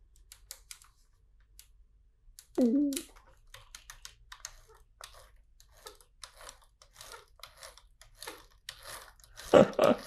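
Scattered clicks and rattles of plastic LEGO parts being handled, with a short vocal murmur about two and a half seconds in.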